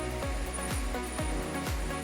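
Background electronic dance-pop music with a steady, deep kick drum beating about twice a second.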